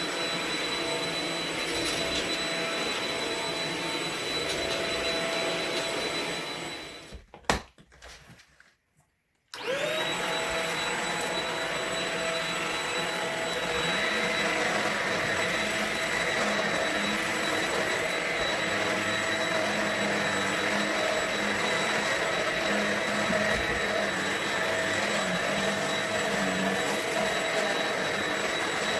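Shark Rocket TruePet stick vacuum running with a steady whine. About seven seconds in it winds down and stops with a click. Two seconds later it starts again, its motor rising quickly to speed, and its pitch shifts slightly a few seconds after that.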